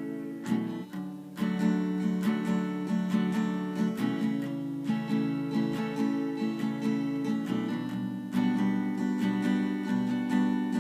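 Acoustic guitar strumming chords in a steady rhythm, with a brief break about a second in before the strumming picks up again.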